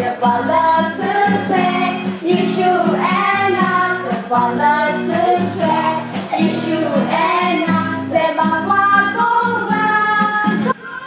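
A group of children and young women singing a song together, loud and continuous, which breaks off sharply shortly before the end.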